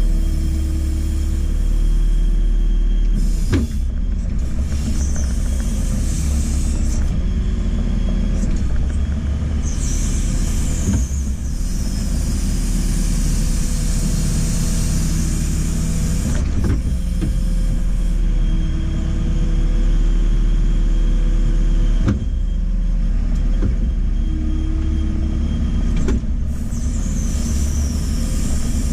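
JCB 4CX backhoe loader's diesel engine running under load, with a hydraulic whine that shifts in pitch as the backhoe works. Stretches of hiss come and go, and there are a few sharp knocks.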